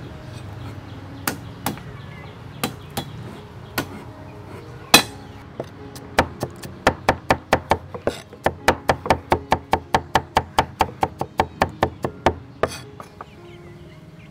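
Cleaver chopping garlic on a thick round wooden chopping board: a few scattered knocks, then from about six seconds in a fast, even run of chops, about four or five a second, that stops shortly before the end.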